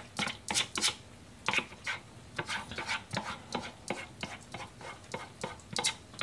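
Metal spoon scraping and tapping inside a yogurt tub as yogurt is spooned out into small bowls: a string of short, irregular clicks and scrapes.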